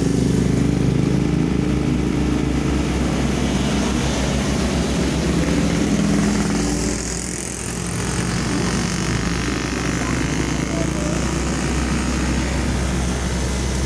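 An engine running steadily with a low hum that eases off briefly about halfway through.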